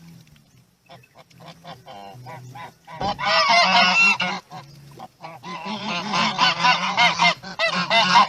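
Chinese geese honking: short, spaced calls that come quicker from about a second in, then loud, overlapping honking from about three seconds in, with a brief pause a little before the fifth second.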